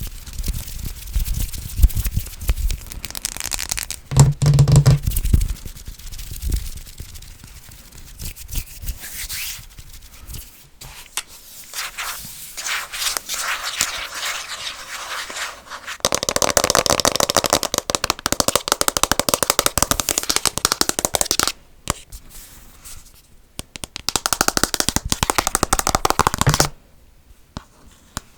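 Very fast tapping and scratching on assorted objects close to the microphone, in rapid runs of clicks and scrapes. A long, dense run of tapping starts about halfway through, with short pauses after it.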